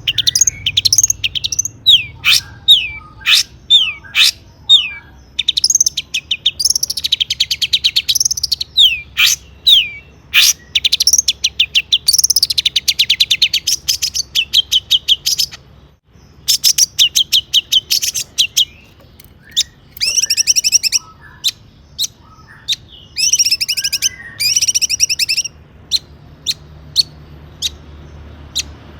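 Long-tailed shrike singing a fast, varied song. It opens with short falling whistles, then goes on to rapid rattling trills and sharp click-like notes, with a brief pause about halfway through.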